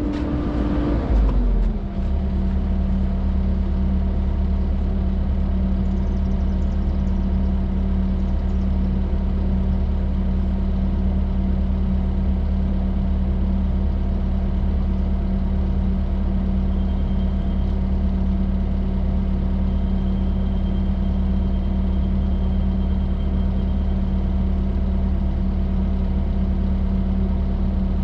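Excavator's diesel engine running steadily. Its pitch drops about a second in, then holds at a lower, even speed.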